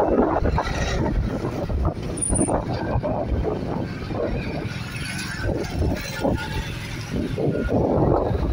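Motorcycle engine running while riding in road traffic, with a dense, uneven low rumble of engine, tyre and wind noise.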